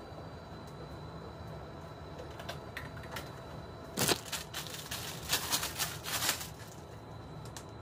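Plastic packaging crinkling and rustling as a dialysis bloodline set is handled: a cluster of sharp crackles starting about four seconds in and lasting about two and a half seconds, over a steady low background hum.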